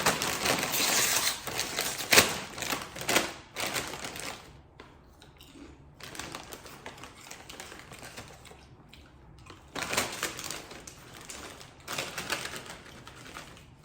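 Close-up crunching and chewing of a crisp snack. There is a dense spell of crackling crunches at the start with a couple of louder bites about two and three seconds in, quieter chewing after that, and a second spell of crunching from about ten to thirteen seconds.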